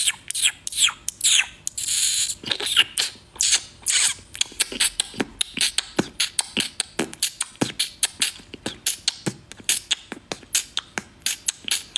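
A man making mouth noises beatbox-style: a quick run of lip pops and tongue clicks, about four a second. Over the first few seconds some come with short falling squeaks.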